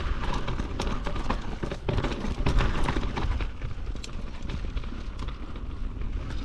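GT Fury downhill mountain bike rolling fast over a rocky dirt trail: tyres crunch over gravel and the bike clatters with many sharp knocks as it hits stones and bumps. Wind rumbles on the microphone underneath.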